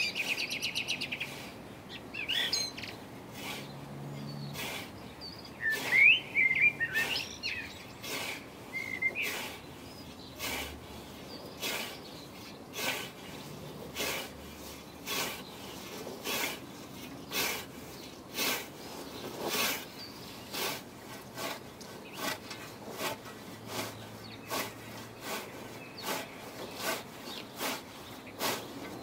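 Scythe with a 32-inch riveted Isaac Nash blade on a Scottish Y-frame snath, swishing through grass in a steady rhythm of about one stroke a second. Birds chirp and sing over it, mostly in the first ten seconds.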